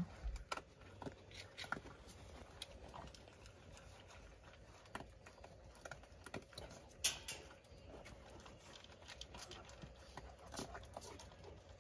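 A dog eating dry kibble from a bowl: faint, irregular crunches and clicks of kibble and bowl, with one sharper click about seven seconds in.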